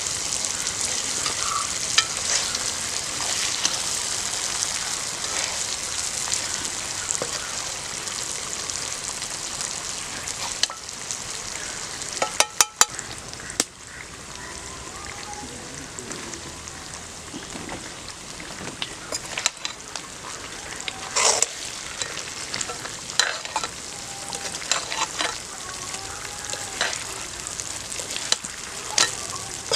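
Duck roast sizzling as it fries in a pan, with sharp knocks and scrapes of a utensil stirring it. The sizzle eases about a third of the way in.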